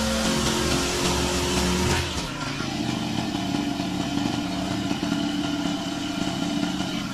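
Petrol lawn mower engine running steadily, its tone shifting about two seconds in.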